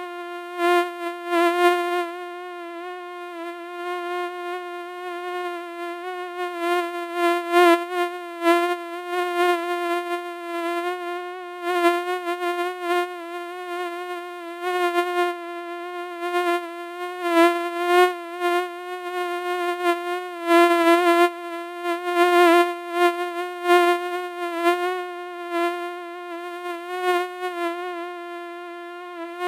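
Housefly buzzing continuously: a steady, slightly wavering wingbeat hum that swells and fades again and again as the fly moves nearer and farther.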